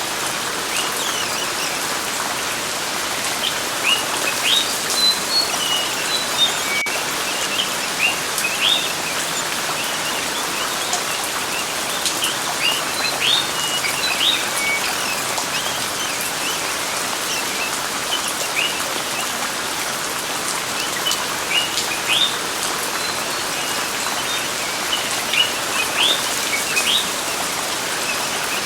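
Steady rain with small birds chirping over it in short bursts of quick rising notes, coming and going in clusters.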